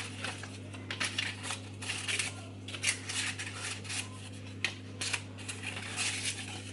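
Paper cupcake cases crinkling and rustling in irregular crackles as they are pressed one by one into a bun tray, over a steady low hum.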